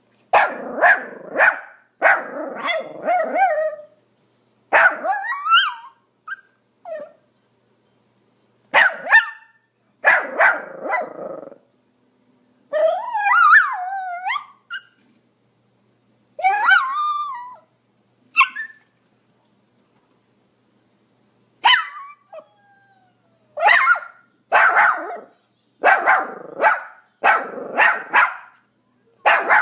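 Pomeranian barking in short bursts of quick yaps with silent gaps between, with two longer whiny yelps sliding in pitch about halfway through and a fast, steady run of barks near the end.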